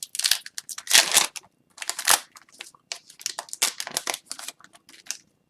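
Hockey card packs and cards being handled, with a run of short crinkling, scratchy strokes that thin out toward the end.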